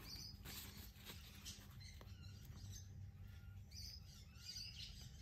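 Faint bird chirps, short and high-pitched, come and go over a low steady hum.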